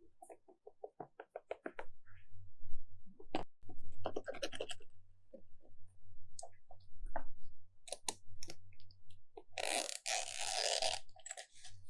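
Slime being squeezed and handled: a quick run of small sticky clicks and pops, then scattered pops, and a longer squelching rustle near the end.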